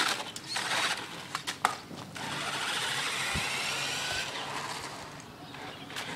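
Nikko 'Panther' RC car's electric motor whirring and its tyres hissing on pavement, fading as the car drives away. There are a few sharp clicks and crunches in the first two seconds.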